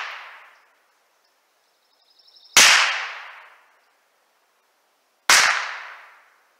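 Two shots from a Savage .22 rifle firing 38-grain high-velocity .22 LR rounds, about two and a half seconds apart, each a sharp crack that trails off over about a second. A faint clicking comes just before the first of the two.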